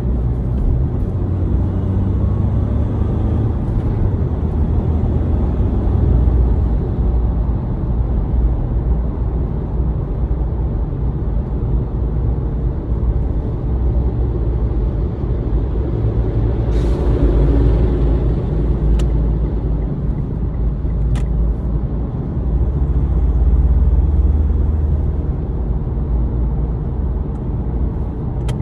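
Car interior noise: a steady low rumble of the car heard from inside the cabin, swelling and easing gently, with a few sharp clicks in the second half.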